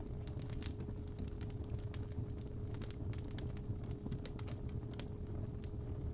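Fireplace fire crackling with scattered sharp pops over a low rumble. A steady 417 Hz tone is held underneath.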